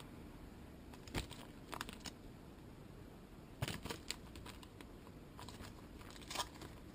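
Faint handling of paper and small packets: soft rustling with a few short crinkles and crackles, about a second in, the loudest near four seconds, and another past six seconds.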